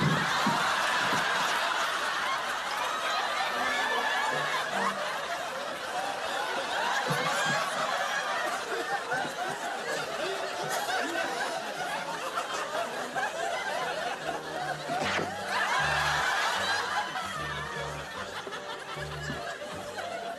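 Audience laughter swelling and fading continuously, over background music with low bass notes. There is a brief sharp sound about fifteen seconds in.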